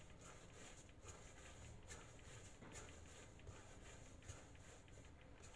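Faint rubbing and soft light taps of hands rolling a log of bread dough on a marble countertop, a stroke about every second, over a quiet room hiss.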